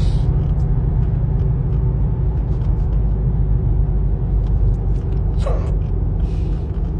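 Steady low road rumble inside a moving car, with a single short hiccup about five and a half seconds in.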